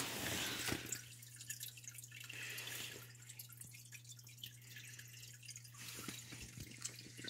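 Faint water trickling and dripping in a home aquarium, a stream of small irregular splashes, with a steady low hum underneath.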